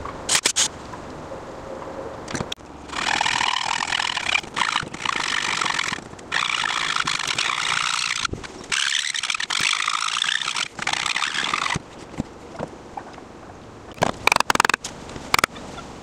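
A thin-bladed hand saw cutting into the joint between a rail and a leg of an old oak rocking chair, rasping in long runs of strokes with short pauses from about three seconds in until near twelve seconds. A few sharp clicks and knocks come at the start and again near the end.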